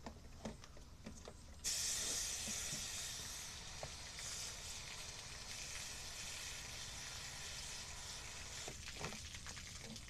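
Garden hose spray nozzle spraying water into a Cuisinart coffee maker, starting suddenly about two seconds in and running steadily, easing a little, until near the end. The water is being forced through to flush the coffee maker's water tube, which the owner suspects is clogged.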